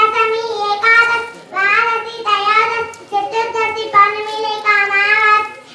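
A young girl singing into a microphone in a high child's voice, holding steady notes in short phrases with brief breaths between them.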